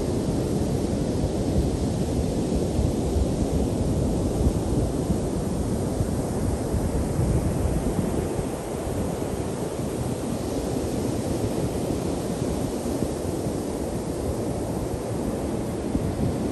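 Ocean surf breaking on a sandy beach: a steady, continuous wash of waves, with wind buffeting the microphone.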